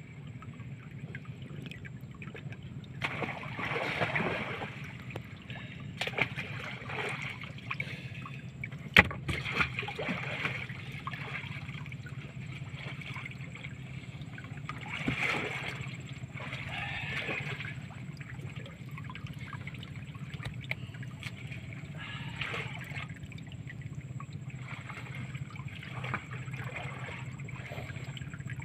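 Water sloshing and splashing in bursts every few seconds as a person wades chest-deep through water, groping for fish by hand. A sharp knock about nine seconds in, over a steady low hum.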